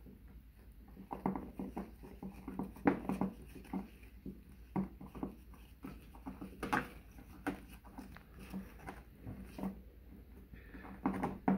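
Irregular light clicks and rustles of a wire nut being twisted onto the spliced wires of a light fixture, with the fixture's metal pan and foil lining handled.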